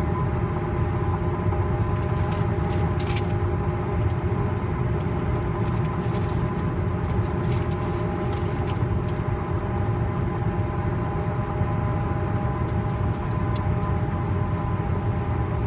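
Steady tyre and road noise of a vehicle driving on Interstate 81: a constant low rumble with a steady whine of several held tones over it.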